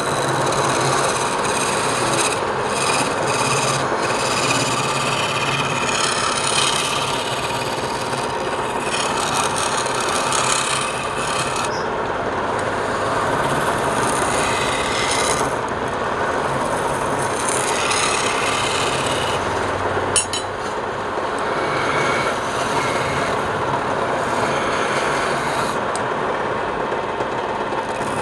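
Wood spinning on a lathe as a turning tool scrapes and rasps against it, over the lathe motor's faint steady hum. The high scraping comes and goes as the tool is pressed on and eased off. There is one sharp click about twenty seconds in.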